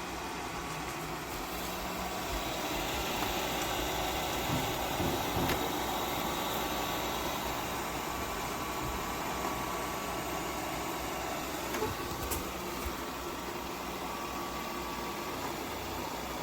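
Tapo RV30 Max Plus robot vacuum running: steady motor and fan noise with a faint high whine and a few light clicks.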